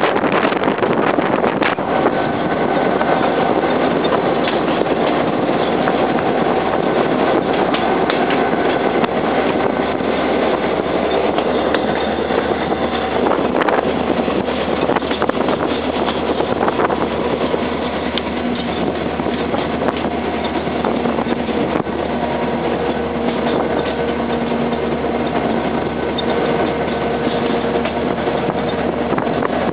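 A train running along the track: a steady rolling rumble with faint, held whining tones that come and go.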